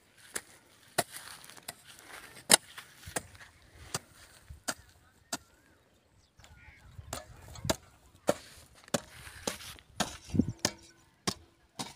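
Long-handled hoe chopping into dry, hard-packed soil. Sharp strikes come about one every two-thirds of a second, with a pause of about a second just past the middle.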